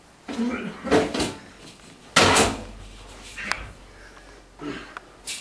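A person bumping and scuffling while clambering into a dark house: a run of knocks and rustles, with one loud bang about two seconds in.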